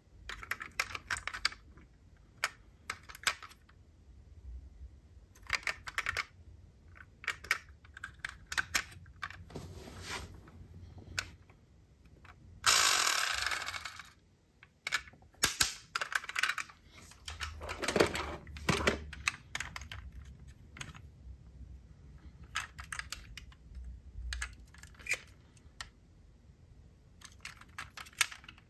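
Hands handling diecast metal model cars and their packaging: irregular clicks, taps and small rattles, with a louder scraping rustle lasting about a second and a half near the middle.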